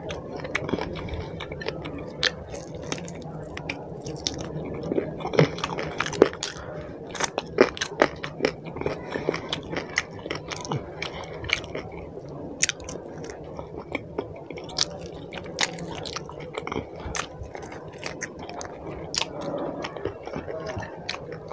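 A person chewing and biting on curry-soaked food, with wet mouth sounds and many sharp, irregular smacks and clicks.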